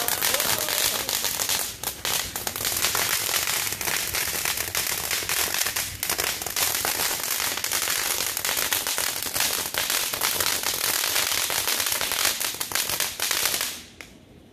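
Ground firework fountain spraying sparks, giving a dense, continuous crackling over a hiss. It dies away suddenly near the end.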